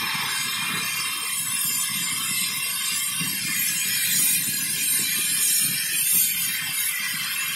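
Hand-held gas torch burning with a steady hiss over a fluttering low rumble as its flame heats a glass tube turning in a glassblowing lathe, softening the glass to form a beaker.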